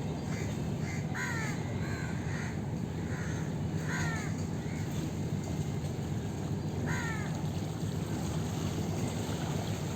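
Crows cawing repeatedly, short falling calls with the clearest about a second, four seconds and seven seconds in, over a steady low rumble.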